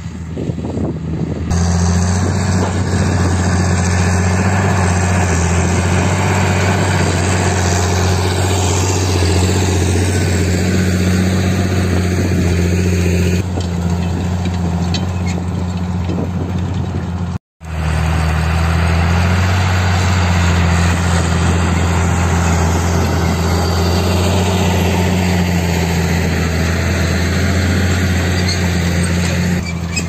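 John Deere 8200 tractor's six-cylinder diesel engine running steadily under load while pulling a Horsch cultivator through the soil, with a deep, even hum. The sound steps up in loudness after the first second or so and cuts out for an instant a little past halfway.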